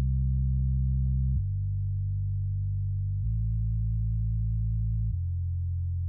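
Sub bass synth patch from FL Studio's Harmor playing a slow line of long, smooth low notes. Each note is held about two seconds before it steps to the next.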